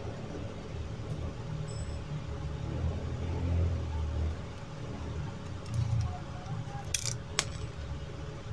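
Two sharp metallic clicks about seven seconds in: steel tweezers tapping against the laptop's metal chassis while a loose hinge nut is seated. A steady low rumble runs underneath.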